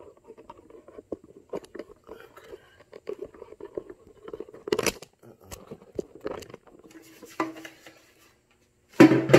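Sandpaper being rubbed by hand over an oxidised plastic headlight lens in wet-sanding, with irregular scratchy strokes that stop about a second before the end. A brief loud noise starts just at the close.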